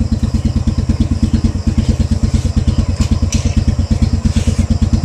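Honda Wave 100's single-cylinder four-stroke engine idling steadily with an even, rapid beat, with a short clack about three seconds in.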